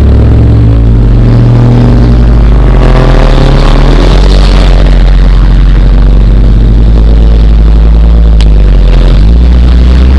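Race car engine idling steadily with the car stopped after a spin, while other race cars drive past; one engine note rises as it accelerates by about two to five seconds in.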